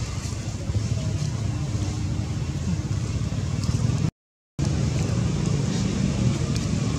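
Steady low outdoor rumble with no distinct calls, broken by a half-second dead-silent gap about four seconds in.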